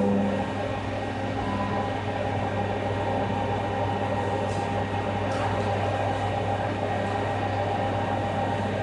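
A motor running with a steady mechanical hum, one of its tones dropping away just after the start.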